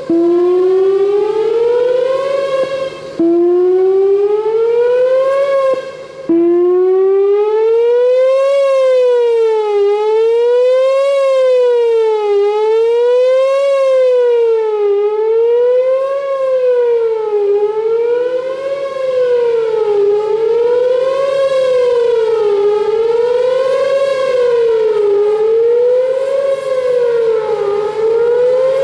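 Whelen WPS-4004 electronic warning siren sounding loud. It first gives two rising sweeps that cut off sharply, then about six seconds in it switches to a fast wail that rises and falls about every two and a half seconds: the attack signal.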